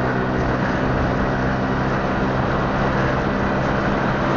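Car driving along a street, heard from inside the cabin: a steady engine hum under constant tyre and road noise.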